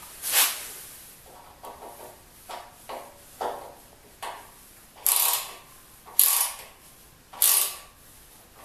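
Ratchet with a 10 mm socket tightening the bolts that hold the legs of a metal band saw stand: faint clicks and knocks at first, then three louder runs of ratcheting about a second apart.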